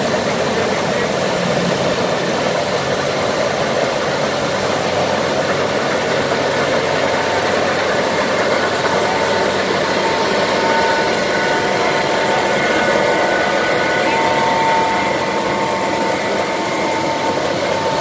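Vintage combine harvesters running while cutting standing wheat: a steady drone of engines and threshing machinery, with a high steady whine rising over it in the second half as a bagger combine passes close.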